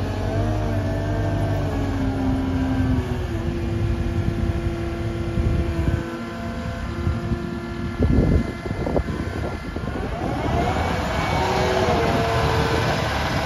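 Cat 279D3 compact track loader's diesel engine running and shifting pitch as the machine drives and turns on gravel, with a few knocks about eight seconds in and the revs rising near the end.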